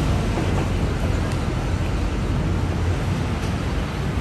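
Busy city street ambience: a steady low rumble of traffic.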